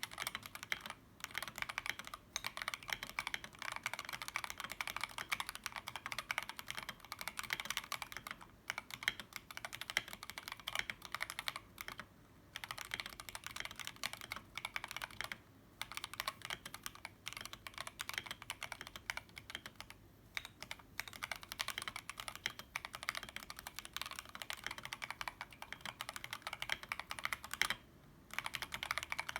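Akko 3084 v2 mechanical keyboard, run without its case and fitted with stock Akko Jelly Black switches, typed on in a fast, continuous stream of keystrokes. The clicking breaks off in short pauses five times.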